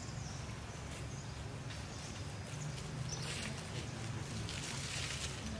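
Macaques moving on dry leaf litter: a few short rustles of crisp leaves and brief faint squeaks from the monkeys, over a steady low background hum.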